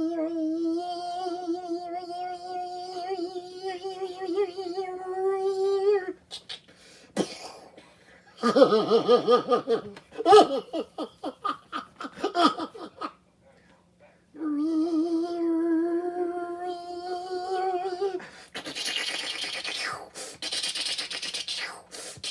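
Silly mouth sound effects made with the voice. A long wavering hummed tone is followed about eight seconds in by a burst of rapid fluttering pulses, then a second long wavering hum, then breathy hissing near the end.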